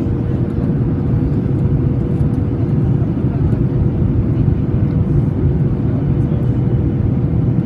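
Steady airliner cabin noise: a deep rumble of engines and airflow, with a faint steady hum above it.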